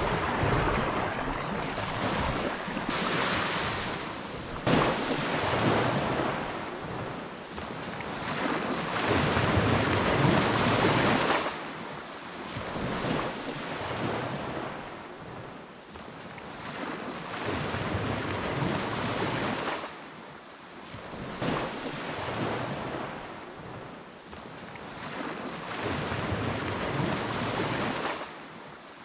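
Sea waves washing onto a sand beach, the surf swelling and falling away every few seconds, with wind buffeting the microphone.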